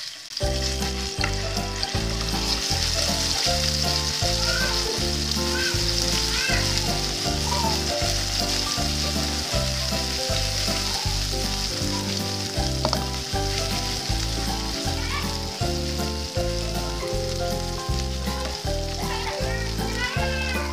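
Ground garlic, shallot and pepper paste sizzling in hot oil in a nonstick frying pan, stirred with a wooden spatula. Background music with a steady beat plays over it.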